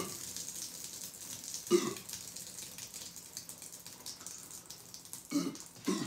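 A man belching up gas from the carbonated ginger ale he has just drunk: one short burp about two seconds in and two more near the end. Between them is a faint fizzing hiss, with fine crackles, from the foam in the plastic bottle.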